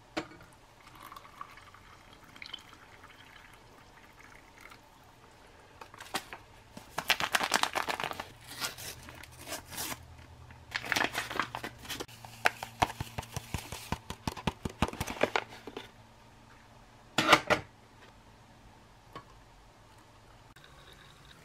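Hot water poured from a metal canteen cup into a glass, then a foil-lined drink powder packet torn open and crinkled in the hands in long crackling runs. Near the end comes one sharp, loud rustle, then hot water is poured quietly onto cocoa powder in a glass.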